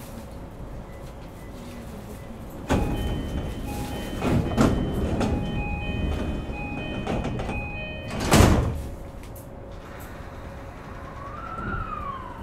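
Passenger doors of a JR East E233-5000 series electric train closing: a repeated electronic door chime of short steady tones plays for about five seconds while the sliding doors move, and the doors shut with a loud thud about eight seconds in.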